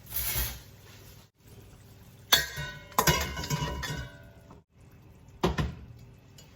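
Metal cookware clanking: a short rush of noise at the start, then sharp ringing clanks and a clatter from about two and a half to four seconds in, and one more clank near the end.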